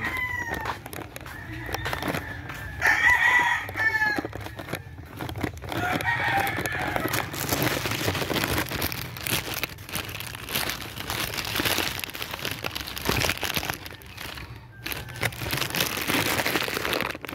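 Roosters crowing: several long crows in the first seven seconds, each ending in a falling tone. After that comes a stretch of rough scuffing and rustling noise.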